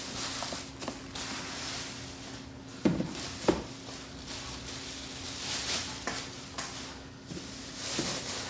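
Packaging being pulled off a new coffee maker: uneven crinkling and rustling of plastic wrapping, with two sharp knocks about half a second apart near the middle as the machine or its parts are bumped.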